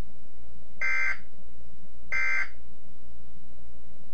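Two short digital data bursts from a weather-radio alert signal, warbling between two high tones about a second apart, over a steady radio hiss and hum. They fit the buzzy FSK bursts of a SAME (Specific Area Message Encoding) code, which marks the start or end of an alert message.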